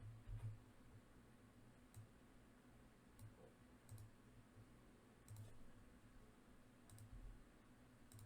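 Faint computer mouse clicks, single clicks spaced roughly a second or so apart, over near-silent room tone.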